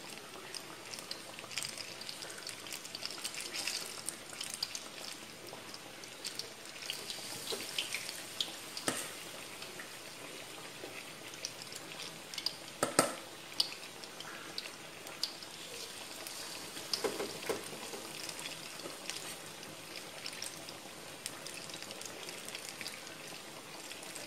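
Batter-coated banana fritters deep-frying in a wok of hot oil: continuous sizzling and crackling, with a few sharper clicks, the loudest about halfway through.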